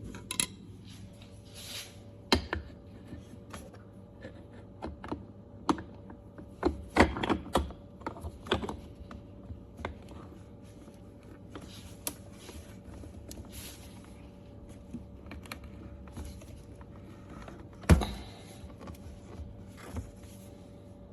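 Irregular clicks, taps and knocks of objects being handled, busiest a quarter of the way in, with one louder knock near the end. A faint steady hum runs underneath.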